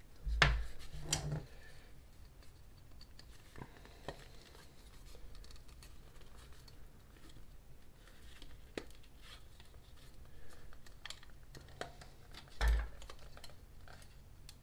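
Scattered clicks and scratches of hard plastic being worked by hand: a hand pin drill twisted in a hole in a plastic miniature base, then a pinned plastic model pressed onto the base. Dull knocks come about half a second in, about a second in, and again near the end.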